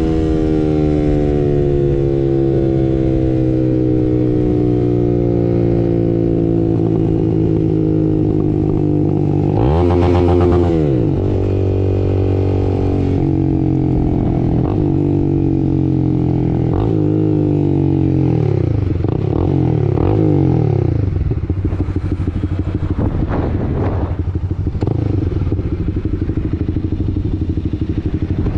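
2022 Honda CB300R's single-cylinder engine through a Two Bros Hurricane slip-on exhaust. Revs fall away gradually while rolling off, and a sharp throttle blip comes about ten seconds in. Several shorter rises and falls follow, then the engine settles to a low, even beat near the end.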